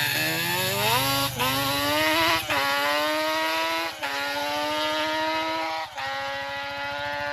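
Sport quad engine accelerating hard from a standing start and shifting up through the gears, with four brief breaks where the pitch drops back at each upshift.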